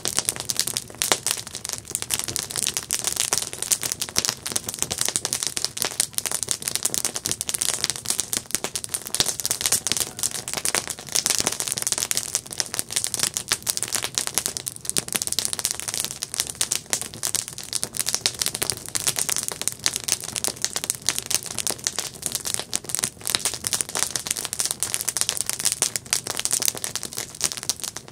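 Campfire burning with dense, continuous crackling and popping of burning wood.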